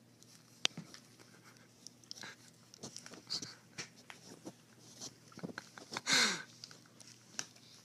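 Crinkly plastic snack bag crackling and rustling in short bursts as a kitten with its head stuck inside it moves about, with one louder crinkle about six seconds in.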